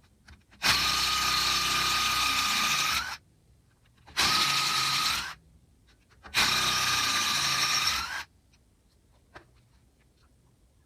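Impact wrench (rattle gun) running in three bursts, about 2.5 s, 1 s and 2 s long, each a steady whine that rises slightly just before it stops, as it backs out Loctited Allen key bolts. A few light clicks follow near the end.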